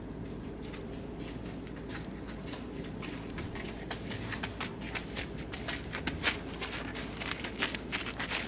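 Oak and beech wood burning in a barbecue grill, crackling with sharp pops that come thicker and faster from about three seconds in.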